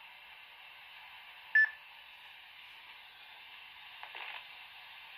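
Baofeng UV-5R handheld radio with its speaker giving a faint steady hiss of receiver noise, and one short, loud, high electronic beep about a second and a half in. A faint brief sound comes through near the end.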